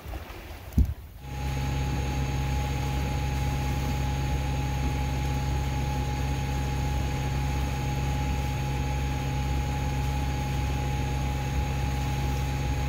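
An engine running steadily, a low even drone with a few fixed higher tones, which starts just after a single sharp knock about a second in.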